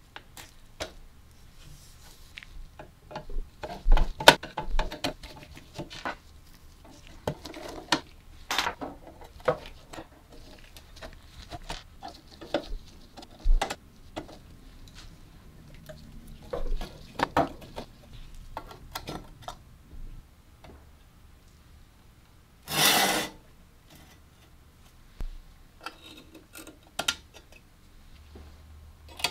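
A screwdriver scraping and clicking against the screws and gears of an old rusty manual playing-card shuffler as it is taken apart, with small metal parts knocking and tapping on the metal casing and the wooden bench. Sharp clicks and knocks come on and off throughout, with one short loud scraping noise about three-quarters of the way through.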